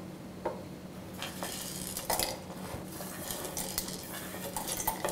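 Whole dry spices (cloves, cardamom, mace, stone flower) sliding off a plastic plate into a stainless steel mixer-grinder jar: a few light, scattered clicks and taps against the metal.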